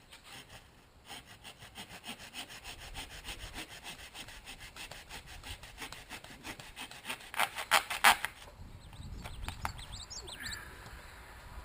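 A folding jab saw's blade sawing back and forth into a power drill's body in quick, even strokes, the last few the loudest, stopping about three-quarters of the way through. Progress is slow: it would cut through, but would take forever.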